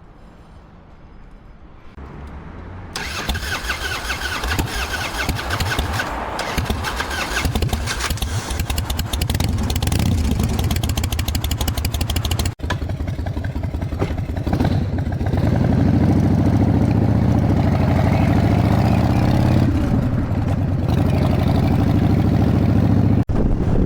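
Harley-Davidson Evolution V-twin on a Softail fires up about three seconds in and runs with a lumpy, pulsing beat, growing louder and fuller about two-thirds through.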